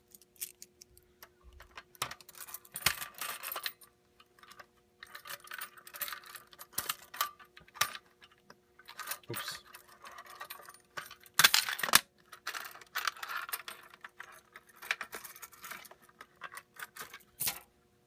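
Keys jangling and plastic clicks and rattles as a Fire-Lite BG-12LX pull station is unlocked with its key and its handle pushed back to reset it after an activation. The loudest clacks come a little past the middle, over a faint steady hum.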